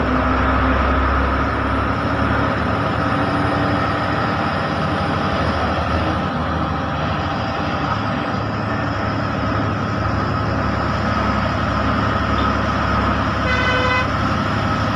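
Bus engine and road noise running steadily while driving in heavy rain. A horn honks once, briefly, near the end.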